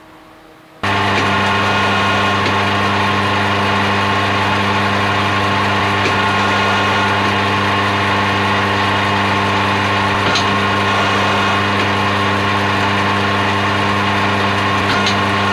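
Metal lathe switched on about a second in, its motor and gearing then running at a steady speed with an even hum and a few faint ticks.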